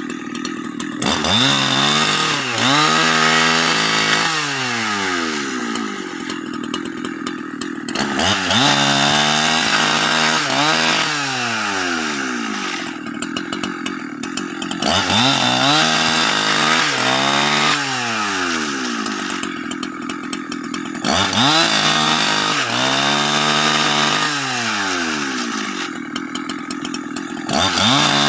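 Husqvarna 365 two-stroke chainsaw, throttled up five times about six and a half seconds apart. Each time the pitch jumps up, holds, then falls away to a steady idle before the next burst, the rhythm of working a cut while ripping a log into planks.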